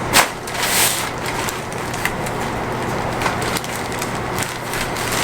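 A single sharp crack of a joint popping under a chiropractic adjustment, followed by a short rustle and a few faint clicks.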